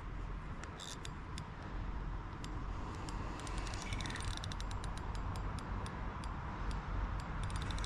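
Wind buffeting the microphone in a steady rumble, with runs of fast, light clicks about midway and again near the end.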